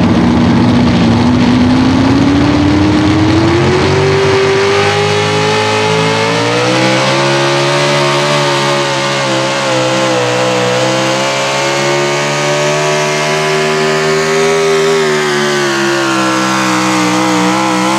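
Pro stock four-wheel-drive pulling truck's engine at full throttle, loaded by the weight sled. Its pitch climbs over the first four seconds, holds high with slight wavers, then falls away at the very end as the pass finishes.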